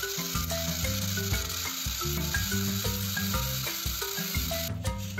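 Motorized plastic toy trains running on plastic track, their gears whirring and clicking, under instrumental music: a melody of short notes over a bass line.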